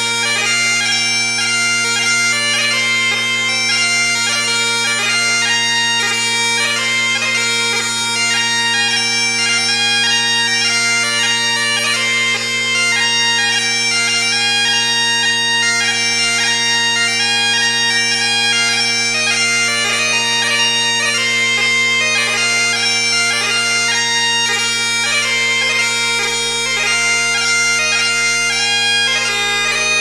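Bagpipe music: a melody played over steady, unchanging drones.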